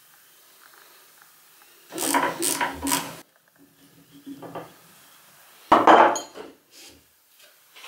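Metal workshop clatter: a quick run of clicks and clanks about two seconds in, softer clinks after it, and one loud sharp knock near six seconds.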